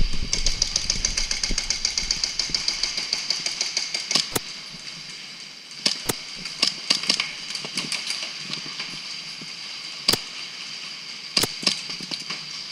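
Airsoft electric gun firing a fast full-auto burst of about three and a half seconds. It is followed by scattered sharp cracks of single shots and BB hits.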